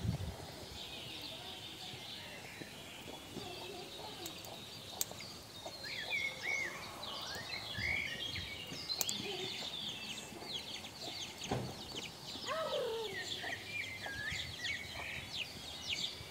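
Small birds chirping and trilling in quick, short high calls throughout, with a chicken calling lower a couple of times about twelve to thirteen seconds in.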